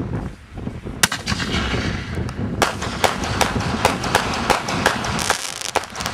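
A Shogun 10-break consumer artillery shell bursting overhead, break after break. There is one sharp report about a second in, then a string of about nine more at two or three a second, over wind noise on the microphone.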